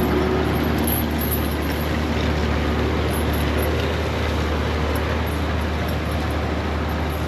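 Large farm tractor engine running steadily, a constant low drone with even mechanical noise over it.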